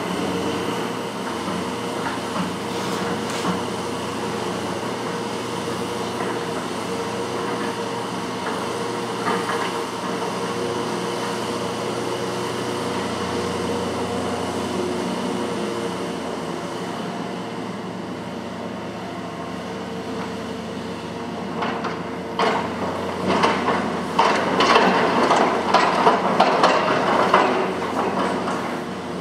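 Large crawler excavator (Hitachi ZX470LCH-3) running steadily on its diesel engine, with a stretch of loud, irregular metallic clanking and knocking in the last third.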